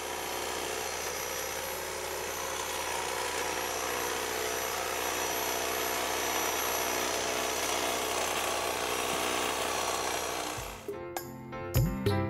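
Corded electric hedge trimmer running steadily as it cuts a hedge. It stops abruptly near the end and music starts.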